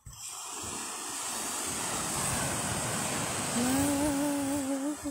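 Surf breaking and washing up a sand beach, with wind on the microphone. About three and a half seconds in, a person hums a held, slightly wavering note over the wash.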